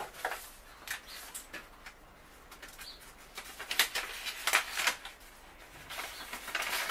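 Sheets of paper rustling and crackling as they are unfolded and handled, in irregular bursts that are loudest around the middle and again near the end.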